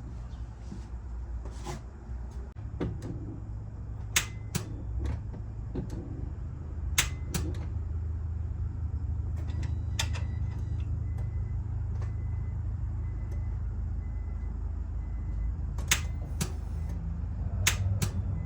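Repeated start attempts on a 2006 Nissan 350Z: each gives a sharp click, mostly a pair of clicks about half a second apart, and the engine does not crank. Some of the clicks come from the key being turned and released, and each start attempt gets only a single click. This no-crank fault appeared after a battery change, and the owner suspects the starter. A faint, evenly repeating beep sounds for a few seconds in the middle, over a steady low hum.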